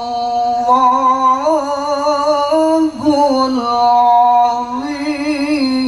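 A man chanting Quran recitation (tilawah) into a handheld microphone. He holds long, ornamented notes with small melodic turns, with a brief break about halfway through.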